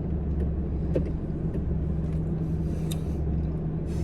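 Car cabin noise while driving: a steady low engine and road rumble, with a few faint small clicks.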